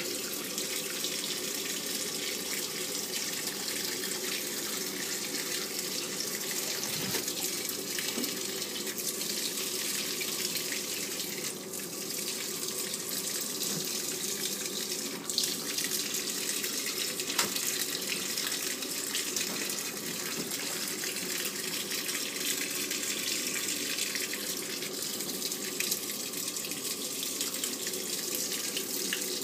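Samsung 7.5 kg top-load washing machine with water running steadily into its tub during the wash cycle.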